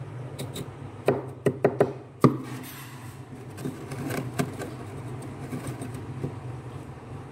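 Glass cup scraping and scooping into thick, soft freezer frost, with a run of sharp crunching knocks between one and two and a half seconds in and lighter crunches a little later, over a steady low hum.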